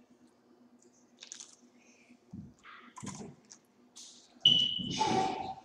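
Hands picking at fried turkey in a plastic bowl, with scattered light clicks and rustles. About four and a half seconds in comes a louder noise lasting about a second as a small plastic sauce packet is torn open.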